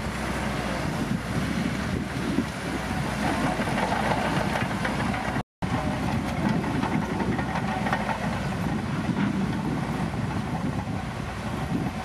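Shantui crawler bulldozer's diesel engine running steadily under load as the dozer pushes soil with its blade. The sound drops out completely for a moment about five and a half seconds in, then carries on the same.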